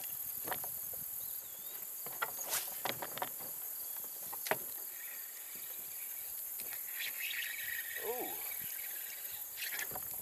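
Insects chirring in a steady high-pitched drone, with a few scattered sharp clicks and a brief wavering call about eight seconds in.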